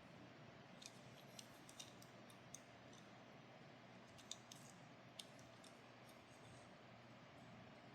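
Faint, sharp clicks and ticks of small die-cast toy cars being handled, about seven scattered through the first five seconds, over quiet room tone.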